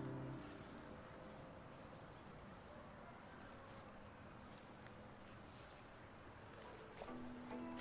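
Faint, steady, high-pitched trilling of insects. The last notes of music die away at the start, and music begins again near the end.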